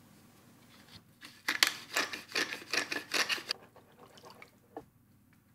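Wire whisk stirring thin gravy in a pot: a quick run of scraping, splashing strokes from about a second in to about three and a half seconds, then a few lighter taps.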